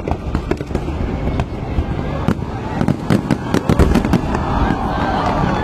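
Fireworks going off without a break: a dense run of sharp cracks and pops over a steady low rumble.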